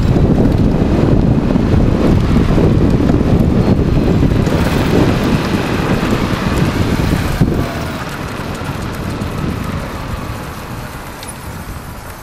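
Wind buffeting the microphone and tyre noise from an electric bike riding along the road, fading over the second half.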